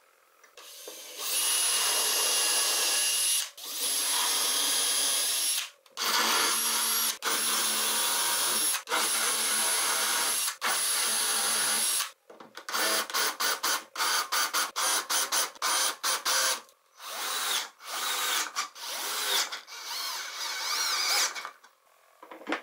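Power drill boring holes in MDF: several long runs of a few seconds each, then a string of short trigger bursts.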